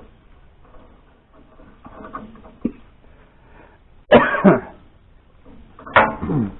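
A man coughing and clearing his throat, with two loud coughs about four and six seconds in, from sawdust caught in his throat.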